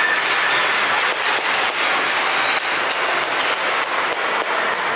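Ice hockey game din: a continuous rushing noise of skates and crowd, with frequent sharp clacks of sticks and puck.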